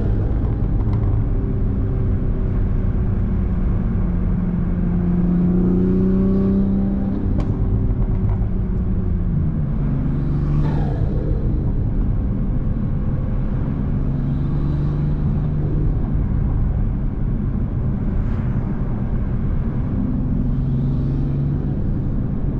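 Toyota Supra MK5's engine and intake running under light load while driving, pitch climbing gently for several seconds, then dropping about ten seconds in and holding steady, over a constant low road rumble.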